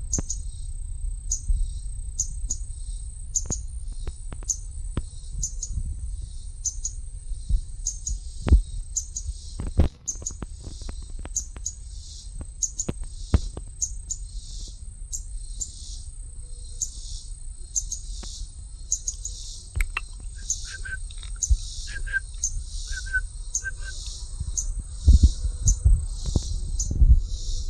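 A small bird chirping over and over, one short high chirp a little more than once a second, with a steady high insect drone behind it. A few low thumps near the end.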